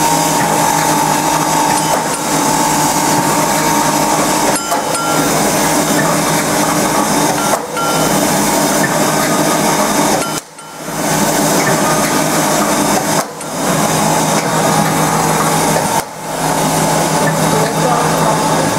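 Automatic welded wire mesh machine running, resistance-welding steel wire into mesh and winding it onto the roll: a loud, steady mechanical din with a low hum, dipping briefly several times, about every three seconds.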